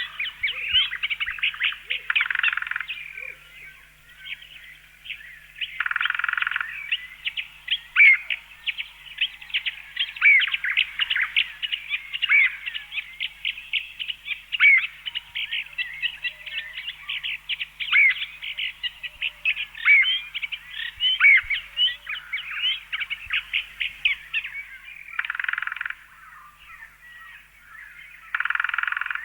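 Bird chirping sound effect: a constant chatter of quick, overlapping chirps and short tweets, with denser bursts of chatter now and then.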